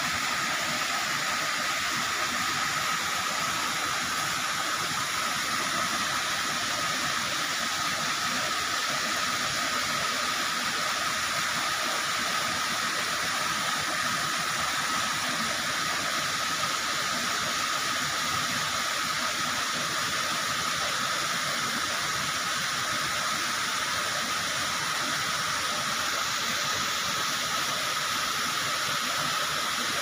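Waterfall pouring over bare rock slabs, a steady unbroken rush of water, with a steady high tone running through it.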